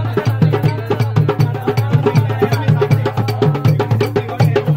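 Hand drums, among them a rope-laced barrel drum and a blue-headed drum, played together by hand in a fast, steady rhythm.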